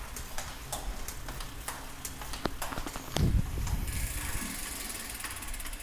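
A bike making the noises its owner calls awful: a repeating click, a few times a second, with a louder knock about three seconds in.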